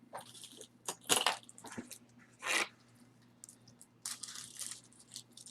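Jewelry being handled: short rustles and clicks, with a sharp click about a second in and longer rustling around the middle and near the end.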